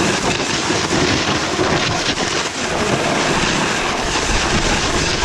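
Steady rushing noise of riding downhill on a snowboard: wind buffeting the microphone mixed with the board sliding and scraping over snow.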